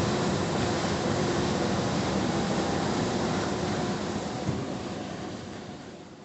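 Cutter suction dredger's machinery running with a steady drone, with one dull knock about four and a half seconds in; the sound fades away near the end.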